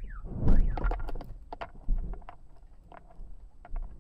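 A short warbling chirp, then a loud low thump about half a second in, followed by a scatter of sharp clicks and knocks, one harder knock near two seconds in.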